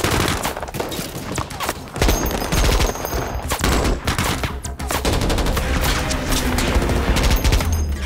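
Heavy staged gunfire: rapid, overlapping automatic bursts and shots that go on without a break.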